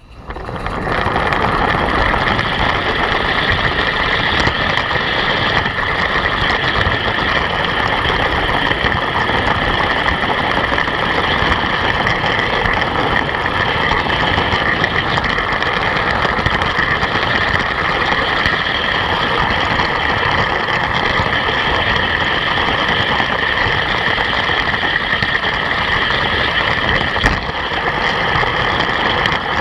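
Steady rolling rumble and rattle of a G-scale pump car's wheels on garden-railway track, heard through a camera riding on the car, with a steady high whine over it. A live-steam locomotive pushes the car.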